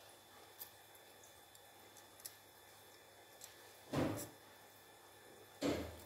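A few faint light ticks, then two short handling noises about 1.7 s apart, as hand tools and the plastic microphone body are picked up and moved on the workbench.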